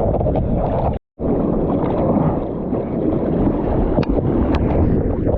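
Strong wind of about 30 knots buffeting the microphone, a loud steady rumble, with water noise from the sea mixed in. The sound cuts out for a moment about a second in.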